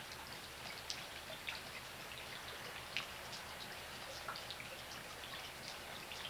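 Light rain: scattered raindrops ticking at irregular intervals over a faint steady hiss.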